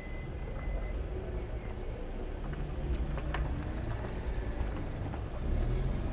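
City street ambience: a steady low rumble of traffic, with a few light clicks and taps. A thin steady high tone fades out about a second in.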